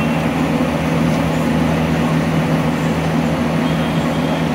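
A steady low mechanical hum over the constant hiss and bubble of hot oil, as batata vadas deep-fry in a large kadai.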